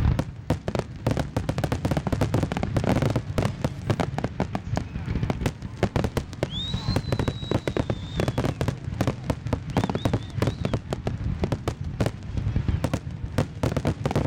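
Fireworks display: aerial shells bursting in quick succession, a dense run of bangs and crackles over a constant low rumble. A high whistle rises about halfway through and holds for about two seconds, followed by three short whistles.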